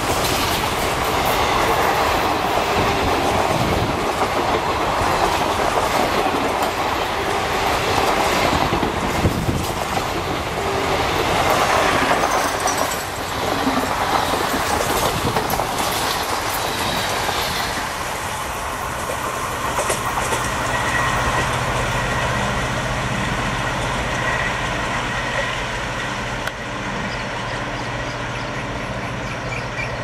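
Passenger coaches of an express train rushing past at speed, their wheels clattering over the rail joints in a steady roar. After about eighteen seconds the roar drops away to a quieter, steady low hum as the train draws off.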